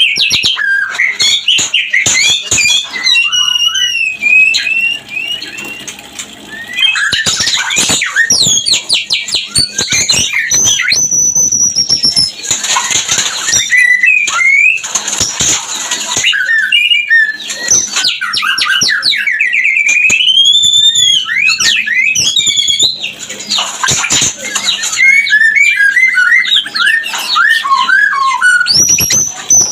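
White-rumped shama singing its breeding-season song: rapid runs of varied whistles, trills and harsh chattering notes, almost without pause, with a short lull about five seconds in.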